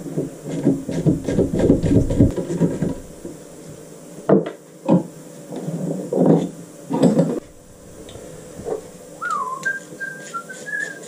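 Clatter and knocks of metal engine parts being handled and worked in a bench vise. About nine seconds in, a man whistles a few notes, starting with a falling slide and then several short held notes.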